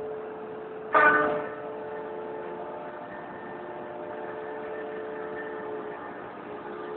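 A CNC machine running with a steady motor hum, and a short, loud ringing metallic clang about a second in that dies away quickly.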